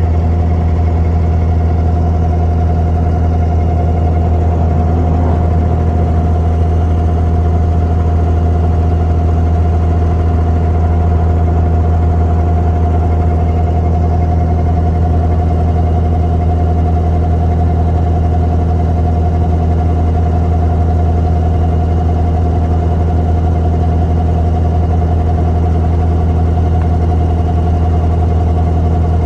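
Inboard diesel engine of a wooden abra water taxi running steadily under way, a deep, unchanging hum.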